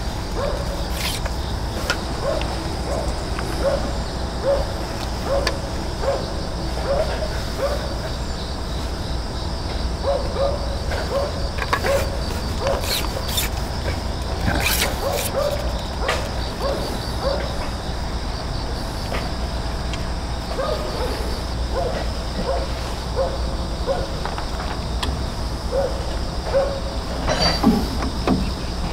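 Outdoor pond-side ambience: wind rumbling on the microphone, insects trilling steadily with a pulsing high note, and a short low note repeating about twice a second in long runs, broken by a few clicks.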